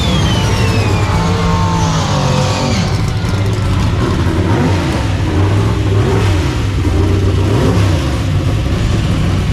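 Drag car's engine running and revving, its pitch rising and falling, with a high whine that falls in pitch over the first two seconds.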